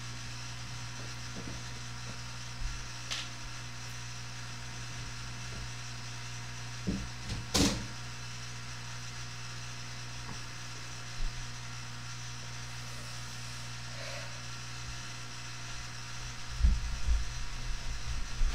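Room tone with a steady low hum, broken by a few scattered knocks and clicks, the sharpest about halfway through. Near the end a cluster of low thumps and bumps as someone moves back in front of the camera.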